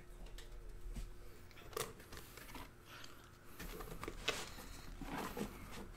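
Trading cards and their packaging being handled: light rustling and crinkling with scattered small clicks and taps, a few short louder crinkles about two seconds in and again after four seconds.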